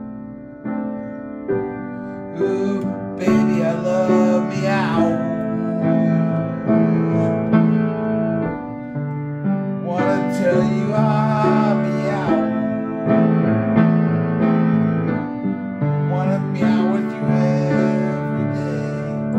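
Kohler & Campbell piano played in slow, held chords, with a wordless sung voice coming in over it three times.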